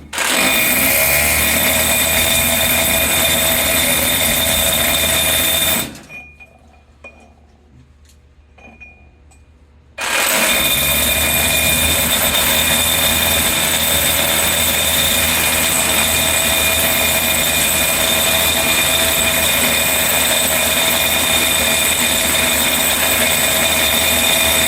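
Electric hammer drill running, its bit used as a pestle to pound and crush ore. It runs steadily, stops about six seconds in for a pause of about four seconds, then starts again and runs on.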